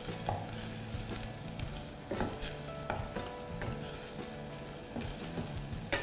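Shrimp and squid frying in green curry paste and coconut cream in a stainless steel pot, sizzling while stirred with a wooden spatula, with a few sharp scrapes of the spatula against the pot about two to three seconds in and again at the end.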